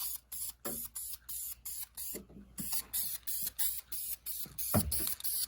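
Paint sprayer hissing in short, evenly spaced bursts, about three a second, laying a coat of paint on small parts. One brief low knock near the end.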